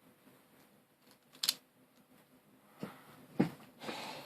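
Small hard plastic puzzle-cube pieces clicking and knocking as they are handled and fitted: a sharp click about one and a half seconds in, then a few duller knocks near the end.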